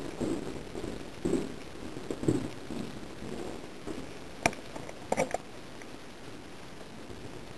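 Soft footsteps on a hard floor, about a second apart. A little over four seconds in comes one sharp click, then a quick run of three clicks.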